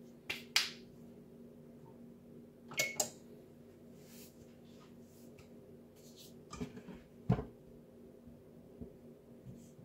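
A few short sharp clicks and clatters of kitchen handling, the first as a hand works at the baked chicken on a wire rack over a foil-lined pan, over a faint steady hum.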